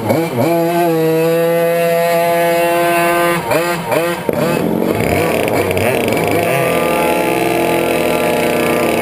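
Yamaha 100cc two-stroke kart engine running steadily just after being started, with a few quick throttle blips about three and a half to four seconds in before it settles back to a steady idle.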